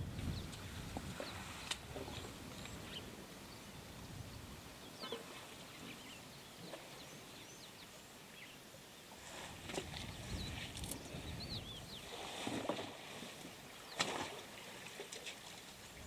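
African bush elephants wallowing in a muddy waterhole: wet mud and water sloshing and slapping, with a few short splashes in the second half, the loudest near the end. Small birds chirp faintly in the background.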